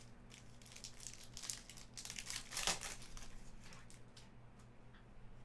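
Foil trading-card pack crinkling as it is handled and opened. The crinkling thins out after about four seconds to a few light clicks as the cards come out.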